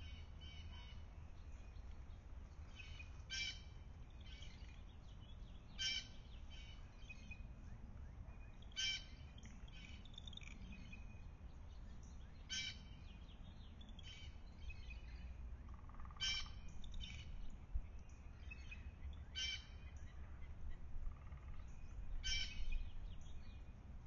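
A bird calling outdoors, short high calls repeated about every three seconds, over a low steady rumble.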